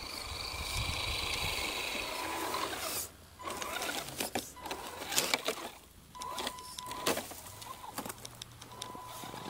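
Electric RC scale 4x4 truck's motor and gear drive whining as it drives through snow. After about three seconds the whine comes in short stop-start bursts as the truck crawls through brush, with crackling and snapping of twigs and snow under the tyres.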